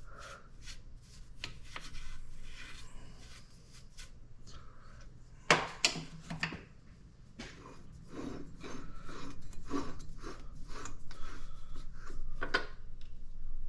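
Metal parts handled by hand: a bushing being screwed onto a lubricated threaded lathe arbor, with scattered clicks and rubbing, a few sharper knocks about six seconds in, and steadier scraping in the last few seconds.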